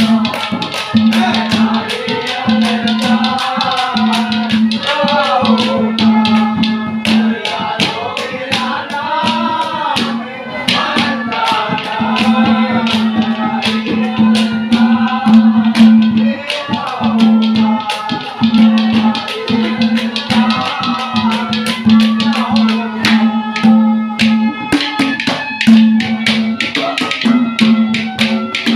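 Live folk music: a man singing over fast hand percussion, with a clay pot (ghara) and drums struck in a quick steady rhythm and rattling percussion. A loud low held note sounds under it, breaking off and returning every second or two.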